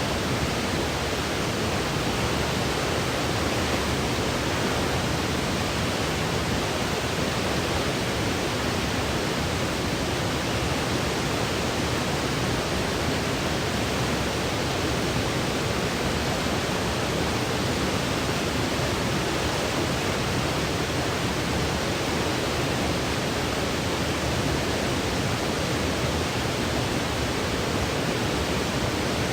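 Steady white noise for sleep: an even, unbroken hiss that does not change.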